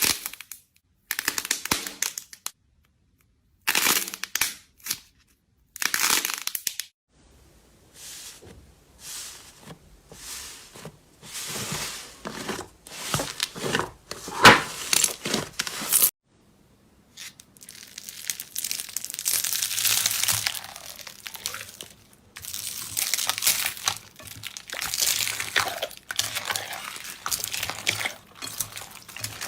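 Slime being squeezed and worked by hand, crackling and crinkling in short bursts, cut together from several clips with brief silent gaps between them.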